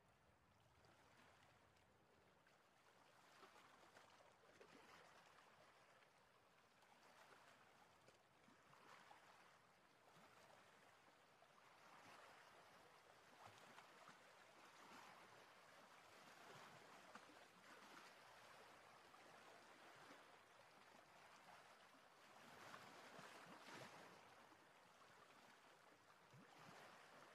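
Near silence: a faint hiss that swells and fades every few seconds.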